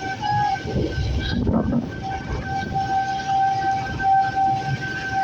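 Outdoor tornado warning siren sounding one steady held tone that swells and fades, over a constant noisy background of heavy rain.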